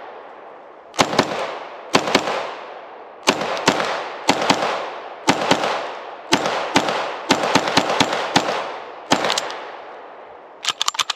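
IWI Uzi Pro 9mm semi-automatic pistol firing quick pairs and short strings of shots, about one group a second, each shot followed by a long decaying echo. Near the end comes a quick run of short, sharp clicks.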